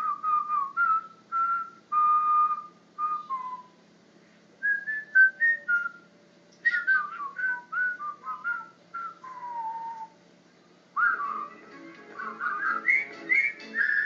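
A person whistling a melody in phrases of short stepping notes and a few held ones, with pauses between phrases. From about eleven seconds in it turns busier and layered, over a lower repeating pattern.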